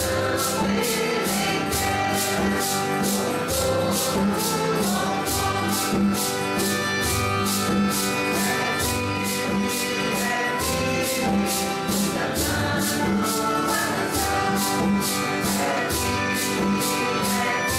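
Group of voices singing a Santo Daime hymn in unison with guitar accompaniment, maracas shaken on a steady beat of about two shakes a second.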